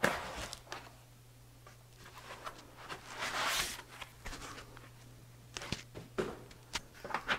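Cardboard box and foam packaging rustling and scraping as a 3D printer is lifted out, with a longer rustle about three seconds in and a few light knocks near the end.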